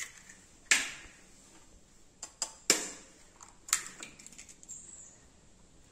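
A knife blade tapped against an eggshell to crack it open over a bowl: about five sharp taps, the loudest about a second in and near three and four seconds.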